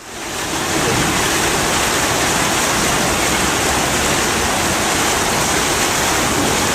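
Loud, steady rushing noise, even across all pitches, fading in over the first second.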